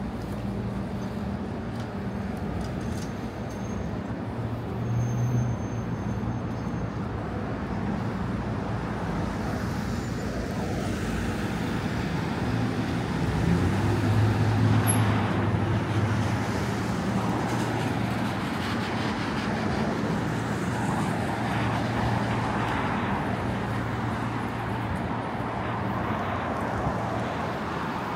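City street traffic: cars and other motor vehicles running and passing, a steady wash of road noise under a low engine hum. The hum grows louder about halfway through as a vehicle comes close, then eases off.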